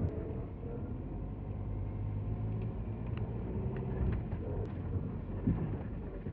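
Car driving: a steady low engine and road rumble, with a few faint light ticks.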